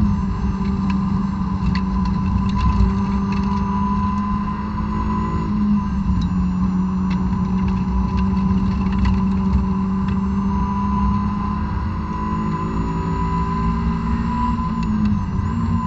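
A 2006 Honda S2000's four-cylinder engine, on stock exhaust and intake, heard from inside the cabin, running hard at high revs of about 5,500 to 7,000 rpm under throttle on track. The pitch is steady apart from a short dip about five seconds in and another near the end, with faint clicks and rattles over road noise.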